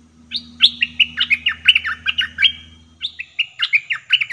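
Caged decoy bulbul singing loudly: two fast runs of quick, falling, chattering whistled notes, the second starting about three seconds in. A faint low hum underneath stops about three seconds in.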